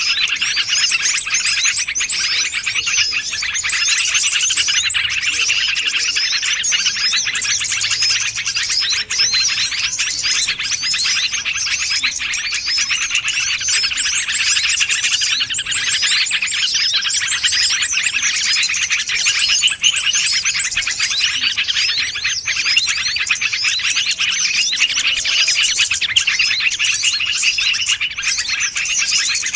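Dense, continuous twittering and chirping of many small birds, the quick high notes overlapping without a break: a lure recording used to draw in small wild birds.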